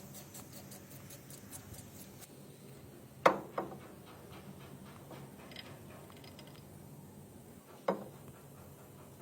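A few sharp knocks: two close together about three seconds in and one more near the end, over faint light ticking.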